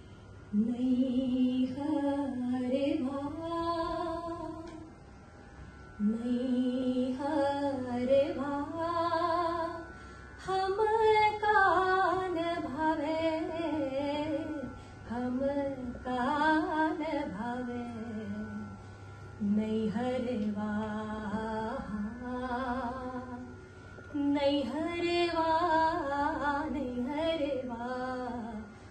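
A woman singing a devotional bhajan solo into a microphone, in about six long melodic phrases with short breaks between them.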